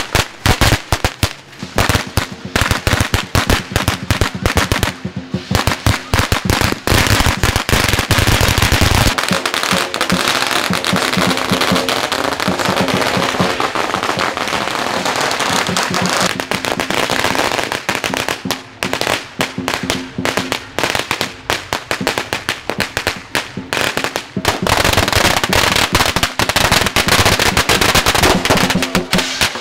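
A long string of red firecrackers going off on pavement: a rapid, unbroken crackle of sharp bangs as the string burns along.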